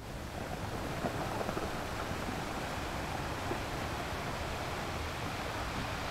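Recorded sound effect of waves crashing on a rocky beach, played back as a steady wash of surf.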